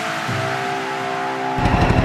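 Rock music with held guitar notes, cut off about a second and a half in by the engines of several go-karts running at idle with a fast low chugging.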